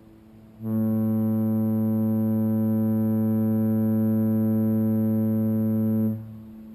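A cruise ship's horn sounding one long, steady, deep blast of about five seconds, starting about half a second in. A fainter steady tone hangs on before and after the blast.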